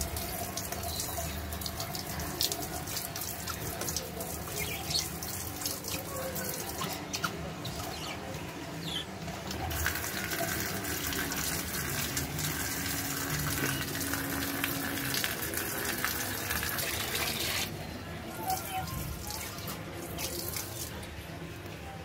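A stream of water from a handheld hose sprayer pouring into a budgie cage and splashing on its wet floor, as the birds are showered. The water cuts off about three-quarters of the way through.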